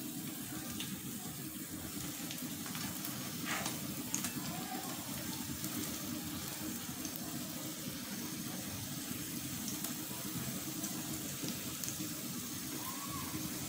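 Oil sizzling steadily in a frying pan as pumpkin chops shallow-fry, with a few light clicks of a metal spatula as the patties are turned.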